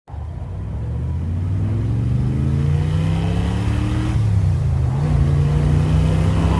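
A car engine accelerating, its pitch climbing steadily, dropping briefly about four seconds in, then climbing again.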